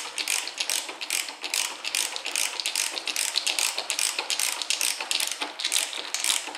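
Hand ratchet screwdriver clicking rapidly and unevenly, several clicks a second, as it drives the bolt into a hollow wall anchor in plasterboard. The anchor is still opening easily, not yet tight.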